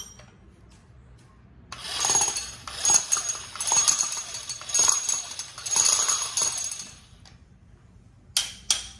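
Makita 17 mm rotary hammer drill running with a drill bit fitted, started about two seconds in and run for about five seconds in several surges, then stopped.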